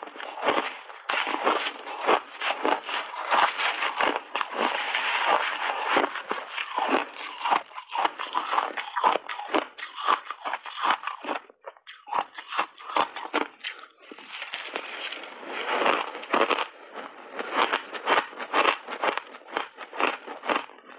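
Shaved ice being chewed in big mouthfuls: a dense, steady run of loud crunches, pausing briefly about halfway through.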